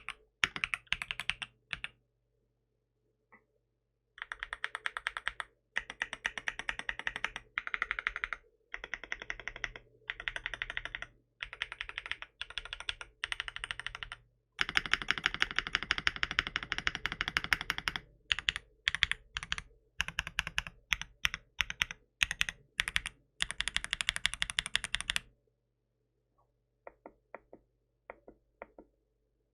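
Typing on a 75% aluminium-cased mechanical keyboard with tactile switches: rapid clacking keystrokes in bursts with short pauses, one long continuous run in the middle. Near the end it drops to a few scattered, quieter key presses.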